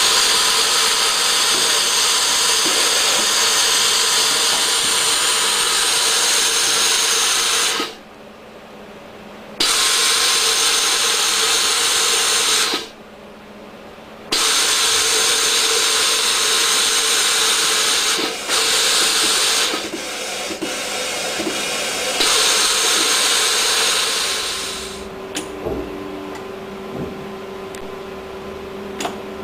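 MACPI 335.49 fabric edge fold-over machine running, its belt drive feeding fabric through, with a loud, steady, noisy whirring. The whirring stops briefly twice, about 8 and 13 seconds in, and drops to a quieter steady hum after about 25 seconds.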